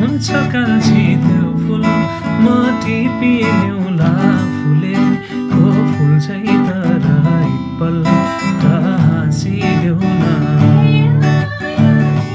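Acoustic guitar strummed steadily, with a voice singing a song along with it.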